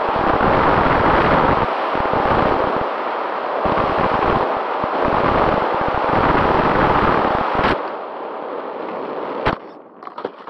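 Airflow buffeting the onboard camera's microphone on an RC flying wing in a fast, low glide: loud, gusty rushing noise that dies down after about eight seconds. Two sharp clicks stand out, the louder one about nine and a half seconds in.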